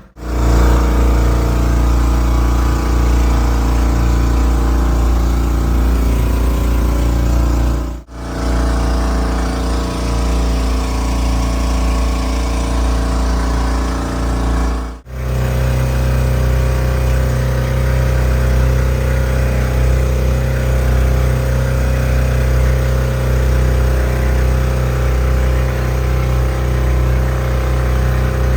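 Outrigger boat's engine running steadily under way, a loud low drone, broken twice by brief cuts.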